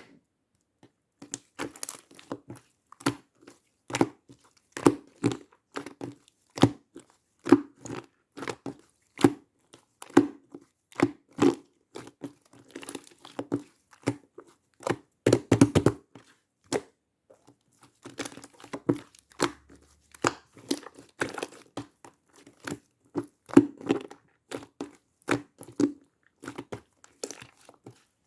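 Slime being squeezed, stretched and poked by hand, giving irregular short clicks and crackles, several a second.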